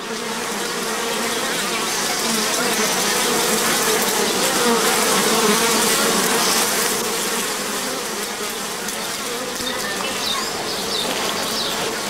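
Wild honeybee colony in a baobab tree's nest cavity, many bees buzzing together in a steady hum that grows louder around the middle and eases off a little toward the end.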